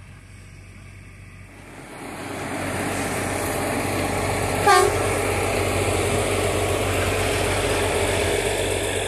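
Unimat track tamping machine's diesel engine running as it passes close by, its noise growing loud about two seconds in. About five seconds in it gives one short horn toot.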